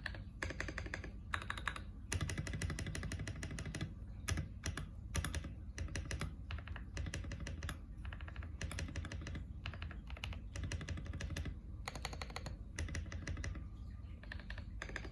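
Typing on a KBD67lite mechanical keyboard with lubed Drop Holy Panda tactile switches and SA-profile keycaps: rapid runs of keystrokes with brief pauses between bursts.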